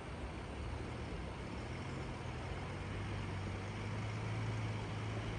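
A low engine drone that grows steadily louder, over a continuous background hiss.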